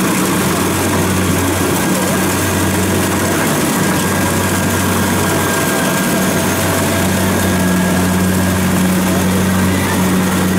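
Kubota DC-70 combine harvester's diesel engine running steadily as the machine works through a rice crop, with the dense whir of its harvesting machinery over a steady low hum.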